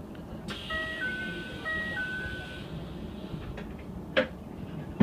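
An electronic two-note chime, high then low, sounding twice in a row over a faint hiss, heard while the train stands still. A short sharp click about four seconds in.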